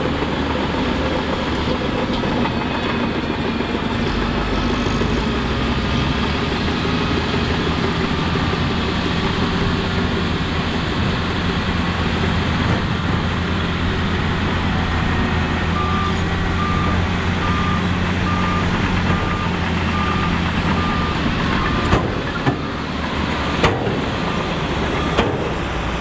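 Heavy diesel earthmoving machinery runs steadily. About two-thirds of the way in, a reversing alarm starts beeping about once a second, and a few sharp clanks come near the end.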